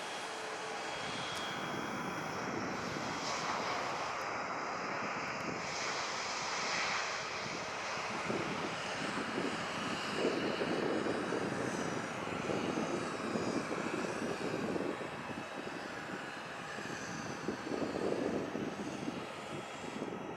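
Jet airliner engines running, a steady wide rush of engine noise. From about eight seconds in, a lower rumble swells and fades in waves.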